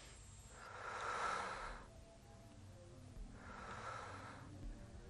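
Slow, heavy breathing from a person: two long breaths, one beginning about half a second in and the other near the end.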